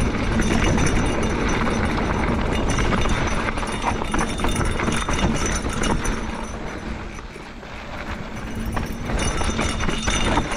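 Esker Japhy single-speed mountain bike rolling fast over a dirt singletrack: tyre rumble with a steady clatter of small knocks as the bike rattles over rough ground, easing off briefly about seven seconds in.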